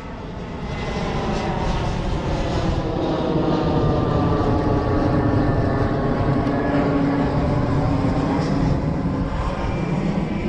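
Steady engine drone with a slowly drifting pitch, growing louder over the first couple of seconds and then holding.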